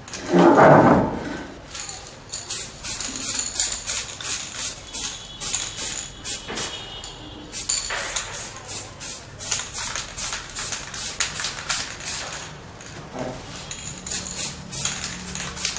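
Aerosol spray paint can being shaken, its mixing ball rattling about four times a second, with a couple of short pauses. A louder knock about half a second in.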